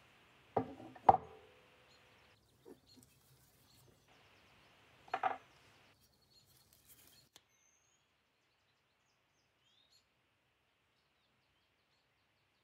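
Metal halves of a disassembled mechanical coin bank knocking against each other and the tabletop as they are handled: two knocks in quick succession, the second ringing briefly, then a short clatter about five seconds in.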